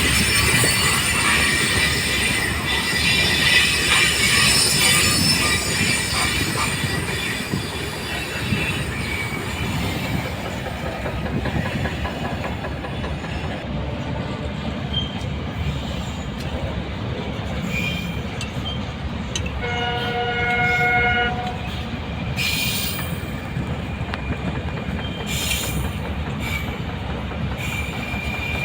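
Indian Railways goods train running, with a steady rumble of wheels on rail and a high wheel squeal through the first several seconds. A locomotive horn sounds once for about a second and a half around twenty seconds in, and a few sharp clacks of wheels over rail joints come near the end.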